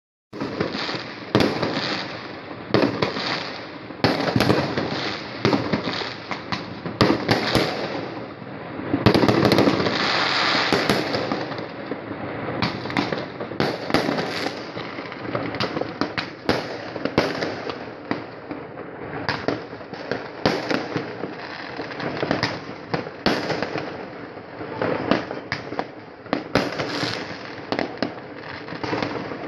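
Many fireworks going off at once: a near-continuous run of sharp bangs and crackling, densest and loudest about nine to eleven seconds in.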